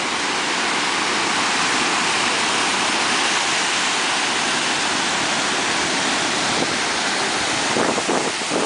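Steady, unbroken rush of ocean surf breaking on the beach.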